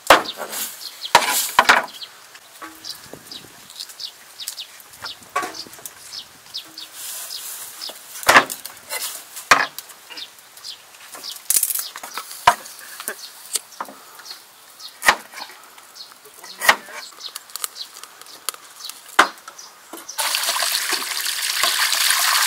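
Knife chopping green onions on a wooden table: sharp, irregular knocks, some much louder than others. About twenty seconds in, water begins gushing steadily from a pipe, splashing over hands and green onions being rinsed.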